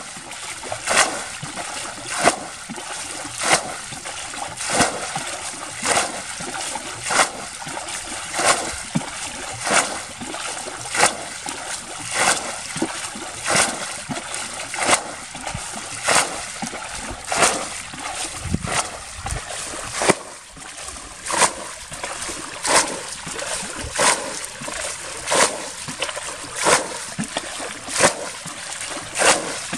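Water being bailed by hand with a plastic container from a muddy ditch: a splash about every second and a quarter as each scoop is thrown out, in a steady rhythm.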